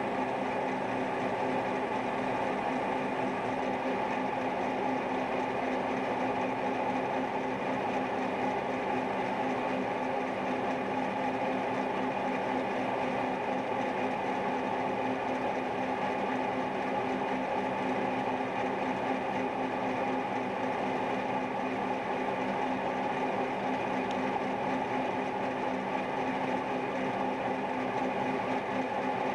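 Cincinnati milling machine running steadily as its angled cutter mills a spherical socket into a steel plate on a rotary table: a steady mechanical hum with a few fixed tones, unchanging throughout.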